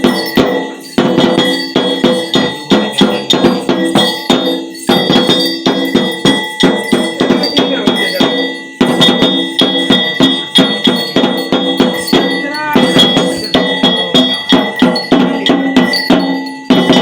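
Rhythmic metal percussion: struck bells or brass, about three to four ringing strikes a second, with a steady high ring beneath and brief breaks in the beat a few times.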